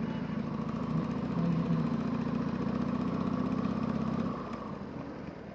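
Harley-Davidson Sportster V-twin engine running at a steady note, then easing off and going quieter about four seconds in.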